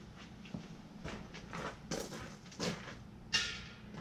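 Footsteps on gravel, a handful of steps about half a second apart, with a sharper knock and a brief ring near the end.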